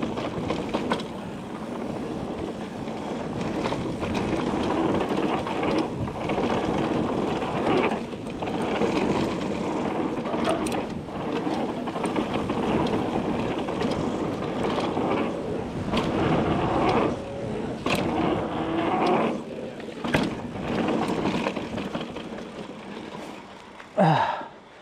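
Mountain bike riding fast down a dirt jump trail: steady tyre and wind noise, broken by rattles and thuds from landings and rough ground. Near the end, a brief sweep falling in pitch.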